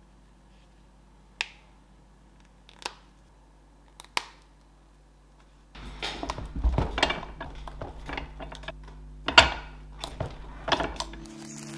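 Objects being handled on a workbench: a few separate sharp clicks, then a busier stretch of clicking, rustling and knocking with one loud knock about two-thirds of the way in.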